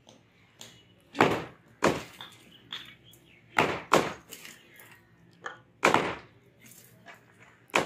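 Hammers striking and breaking reinforced concrete at the edge of a roof slab: about seven sharp, irregularly spaced blows, each with a short ring after it.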